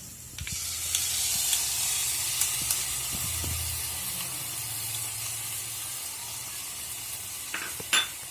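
Soy sauce and tomato ketchup sizzling and hissing in a hot kadai of fried onion, garlic and chilli. The sizzle starts suddenly just under half a second in and runs steadily, with a few light clicks and a sharper clink near the end.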